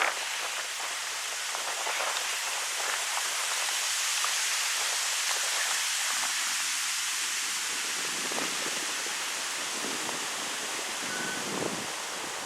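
Wind blowing through birch trees: a steady rustling hiss of leaves and branches that swells slightly toward the middle and eases off again.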